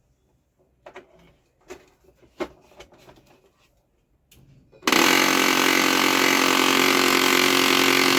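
A few light clicks, then about five seconds in a Canon LBP 2900 laser printer's gear drive starts up with a loud, steady grinding noise. The repairer traces the noise to a jammed clutch gear.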